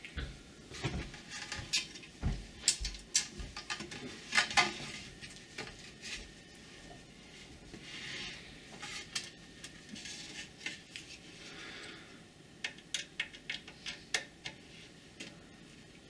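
Scattered light clinks and clicks of small metal screws and bolts being picked out and handled against an aluminium rim, with a plastic hardware bag rustling around the middle.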